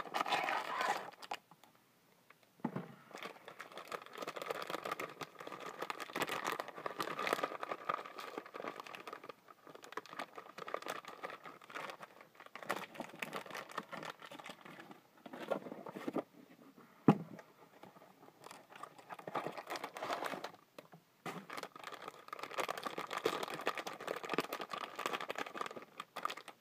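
Toy figure packaging being opened by hand: plastic and cardboard crinkling, rustling and tearing in irregular spells, with scattered clicks and one sharp snap a little past the middle.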